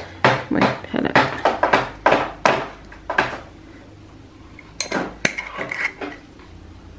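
Small glass spice jars clinking and knocking against each other as they are picked up and moved about in a kitchen drawer. A quick run of clinks fills the first three seconds, and a few more come about five seconds in.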